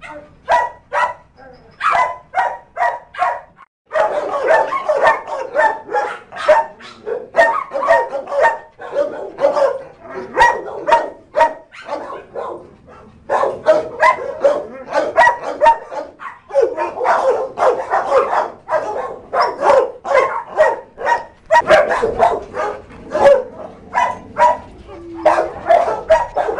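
Many shelter dogs barking together in the kennels, short barks overlapping several times a second. The barking thickens into a continuous din about four seconds in.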